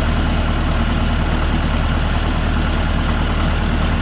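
Tractor engine running steadily while the tractor drives along, a constant low drone with no change in speed.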